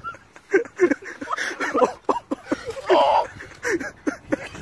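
Human voices making short, wordless exclamations and laughter-like sounds, with a louder outburst about three seconds in.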